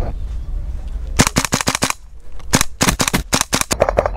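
Airsoft guns firing two short rapid bursts of sharp cracking shots about a second apart, followed by a few fainter shots near the end.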